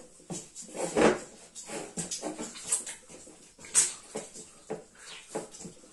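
Wet, 75%-hydration pizza dough being mixed by hand in a stainless steel bowl as the last of the water is worked in: irregular wet squelches and slaps.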